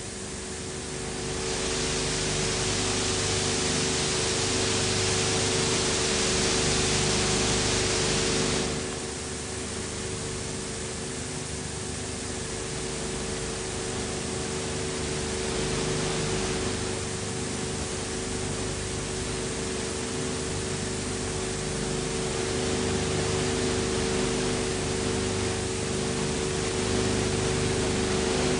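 Steady hiss and electrical hum with no other sound: the background noise of an old film transfer. The hiss gets louder and brighter from about two seconds in until about nine seconds in.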